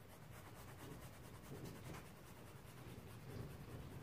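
Faint scratchy strokes of a paintbrush working oil paint on a canvas, over a low steady hum.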